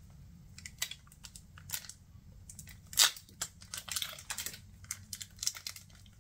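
Crinkly foil wrapper of a Pokémon trading card booster pack being torn open by hand, a stubborn pack that is hard to tear, in a string of sharp crackles with the loudest about three seconds in.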